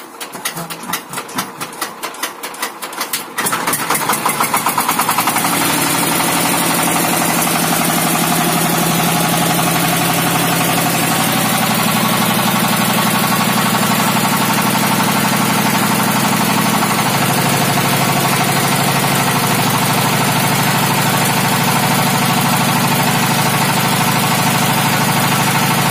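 A 26 HP single-cylinder diesel engine driving a 20 kW generator. It beats slowly at first, then about three and a half seconds in it picks up and settles into a steady run. Its pitch steps up around eleven seconds as it comes up toward the speed that gives about 220 V at 50 Hz from the generator.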